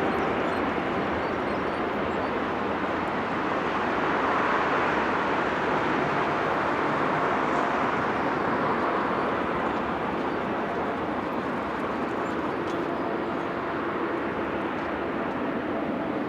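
Twin-engine Boeing widebody jet airliner taking off, its engines at takeoff power giving a steady, loud rushing noise that swells a little midway and then eases slightly.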